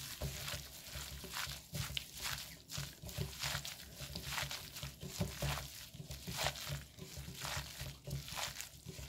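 Gloved hand squishing and tossing dried pollack strips and bellflower root through a sticky red chili-paste dressing in a glass bowl: irregular wet squelches and the rustle of the plastic glove, several a second.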